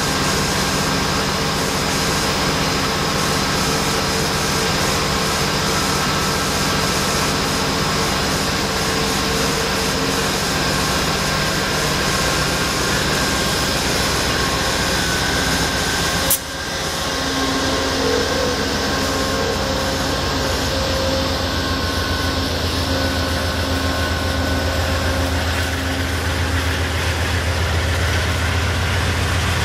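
Amtrak Empire Builder's diesel locomotives running steadily as the train starts to pull out, with a single sharp knock about halfway through. After it a deeper engine drone builds as the train moves off.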